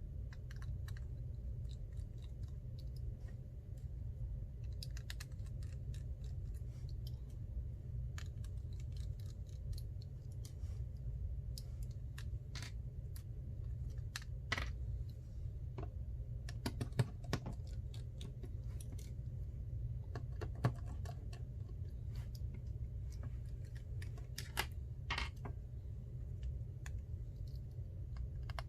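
Small scattered clicks and taps of repair tools and tiny metal parts as an iPhone 6 Plus is taken apart, a few sharper clicks with a brief ring, over a steady low hum.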